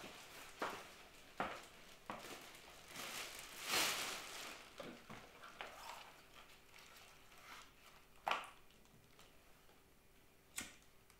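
Faint crinkling and rustling of a black plastic bin bag being handled, with scattered small clicks and knocks. The longest rustle comes about four seconds in, and there is one sharp click near the end.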